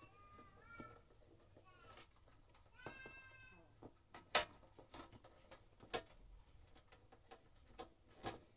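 Clicks and knocks of the plastic and metal parts of an electric hot-water pot being handled and fitted back together, the loudest a sharp click about four seconds in. Two short high-pitched squeaks sound, one at the start and one about three seconds in.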